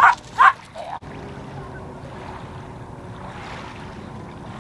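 A man calls "come on" to his dogs at the start. After an abrupt cut, a steady outdoor background of wind noise follows, with a faint low hum under it.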